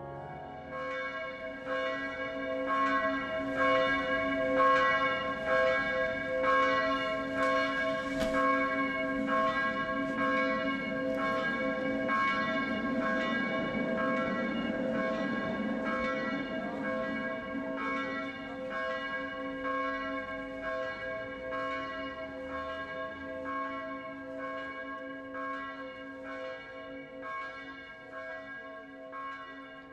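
A church bell tolling as a funeral knell, with slow, evenly repeated strokes and a long ring between them, easing off slightly toward the end.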